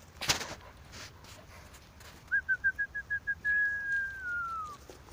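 A person whistling to call a dog: seven short, quick whistle notes, then one long whistle that slowly falls in pitch. A brief rustling thump comes just before, near the start.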